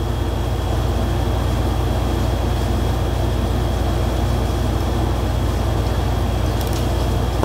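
Steady low machine hum with a faint, thin high-pitched whine, constant throughout.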